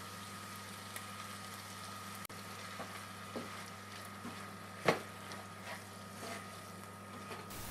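Chicken pieces and Greek yoghurt sizzling gently in a frying pan while a spatula stirs them, with small scrapes of the spatula against the pan and a sharper knock about five seconds in, over a steady low hum.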